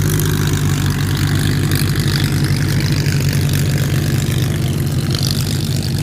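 Piston engine of a propeller aircraft running steadily, with a dense rushing noise over it.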